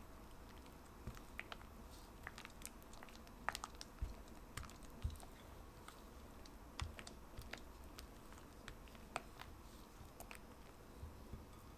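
Silicone spatula folding and scraping soft cream cheese in a glass bowl: faint, irregular light clicks and taps of the spatula against the glass, a few a second, with a few sharper knocks near the middle.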